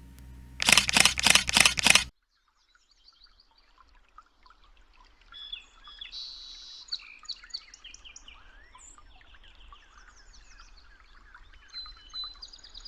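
A loud burst of about five rapid pulses of noise, lasting about a second and a half, cuts off abruptly. Then several birds chirp and call, with many short high chirps and trills.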